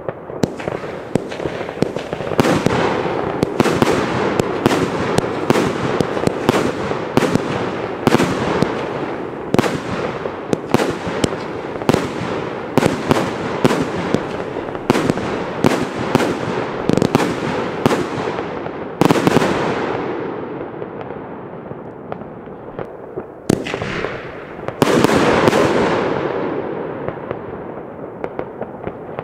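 Klasek Dum Bum Batterie, a 25-shot Czech F3 firework battery, firing a rapid run of loud bangs, each trailing off in echo. The shots thin out after about nineteen seconds, with a few heavy bangs near the end.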